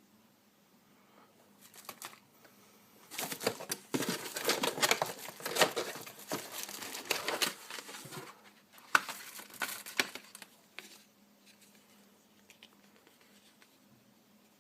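Packaging being opened by hand, crinkling and tearing in two spells of handling, the first a few seconds in and the longer of the two, the second shorter and near the middle.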